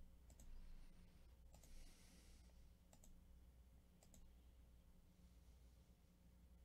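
Faint computer mouse clicks, irregular single clicks mostly in the first four seconds, over near silence with a low steady hum.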